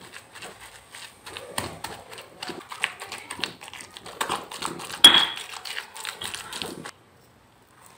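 Stone pestle pounding fermented fish paste with young tamarind in a stone mortar: irregular knocks and dull thuds, with one sharp stone-on-stone clack about five seconds in. The pounding stops about a second before the end.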